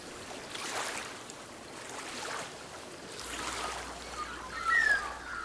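Gentle surf washing on a sandy beach, a steady hiss of water rising and falling slowly. Near the end, a few short high gliding calls.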